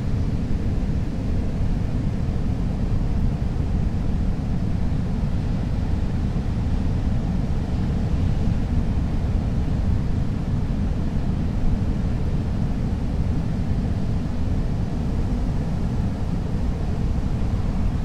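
Ocean surf on a rocky shore: a steady low roar with no single wave crash standing out.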